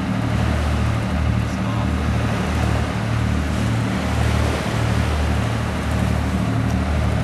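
Motorboat's engine running steadily while under way, a low throb pulsing about twice a second, over a steady hiss of water rushing past the hull.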